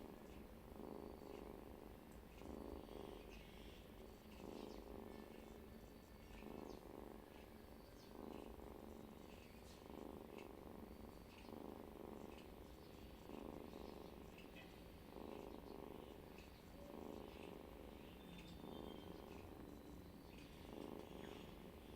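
Cat snoring in a steady rhythm, one breath about every two seconds.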